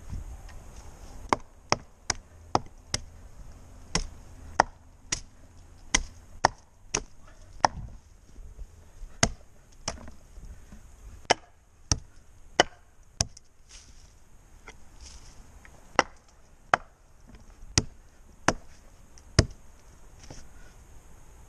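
Hand axe chopping into the base of a tree trunk: about two dozen sharp, separate strikes into the wood at roughly one or two a second, with a short pause partway through.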